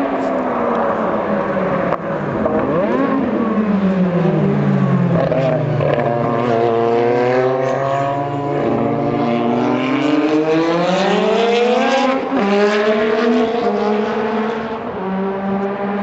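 Historic Formula 1 cars' racing engines: the pitch drops as the cars brake and shift down, then climbs steeply as they accelerate out, with more than one engine heard at once.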